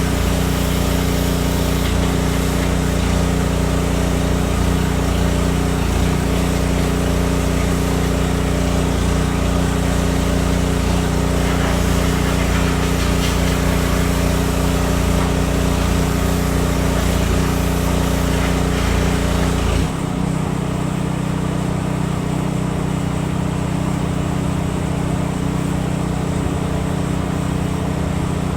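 A steady motor hum under a hiss. About twenty seconds in, the deepest part of the hum drops away abruptly and the hum settles into a different set of pitches.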